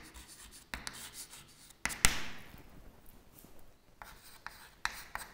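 Chalk writing on a blackboard: scattered short scratches and taps, with a sharper knock about two seconds in.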